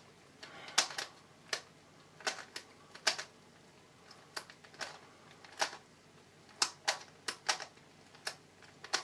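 Twisty puzzle being turned by hand during a solve, its layers giving irregular sharp clicks, about one to two a second. The puzzle is a clicky one, which the owner puts down to a ball bearing inside.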